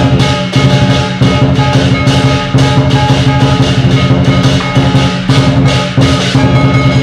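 Chinese lion dance percussion: a drum, clashing cymbals and a gong playing a steady, driving beat, with the cymbals and gong ringing on between strikes.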